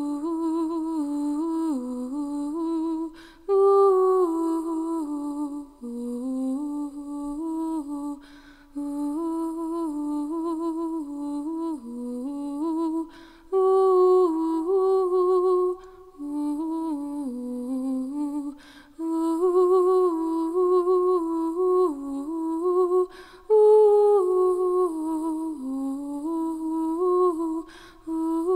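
A solo unaccompanied woman's voice humming a slow melody, in phrases of about four to five seconds with a short breath between them.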